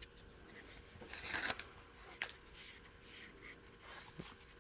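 Trading cards and their pack being handled: faint rustling with a couple of light clicks.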